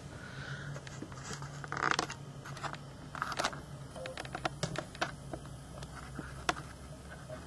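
Scattered, irregular clicks of a computer keyboard and mouse being worked, over a low steady hum.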